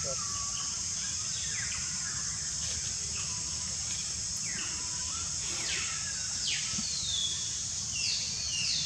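Outdoor ambience: a steady high-pitched insect drone, with short falling bird chirps about once a second.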